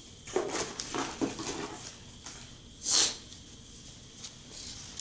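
Soft rustling and movement noises of a person stepping about and handling the laptop's cardboard packaging, with a short loud rush of noise about three seconds in.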